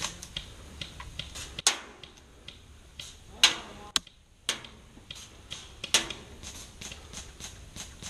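Airsoft guns firing: runs of rapid clicking shots, with three louder, sharper shots about one and a half, three and a half and six seconds in.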